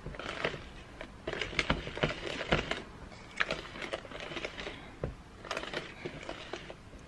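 Thick chocolate brownie batter being stirred by hand with a spoon in a plastic mixing bowl: irregular scraping and clicking of the spoon against the bowl's sides.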